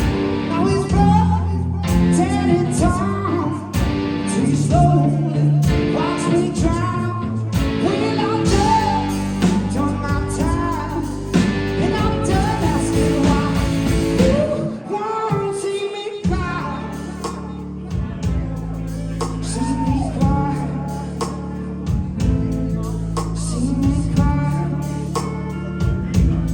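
Live blues-rock band playing: a man singing over electric guitar and drums, with a short break in the low end a little past halfway before the full band comes back in.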